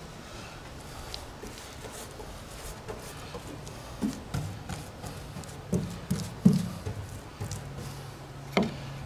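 Paintbrush dabbing and scraping sealant onto an upturned aluminum boat hull, with a run of knocks against the hull in the second half and one sharper knock near the end.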